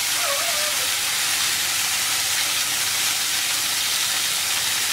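Marinated meat pieces sizzling steadily in hot oil in a frying pan.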